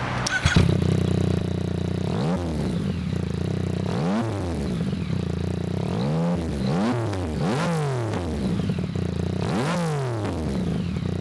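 Yamaha MT-09 Tracer's 847 cc crossplane inline-three engine idling through its exhaust and blipped about six times, each rev rising quickly and dropping straight back to idle.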